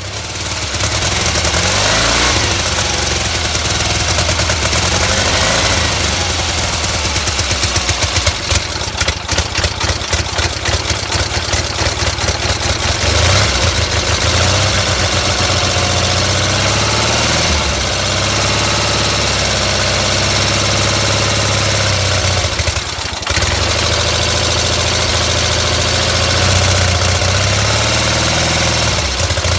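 Gravely 450's rebuilt Onan CCKA two-cylinder air-cooled engine running just after starting, its speed wavering rather than holding steady, with a rough, uneven patch early on and a brief dip later. The owner traces its poor running to a throttle linkage rod about an inch too long, which lets the governor race the engine.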